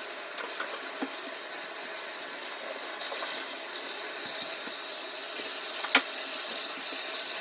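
Bathtub faucet running steadily, filling the tub with hot water, with one sharp click near the end.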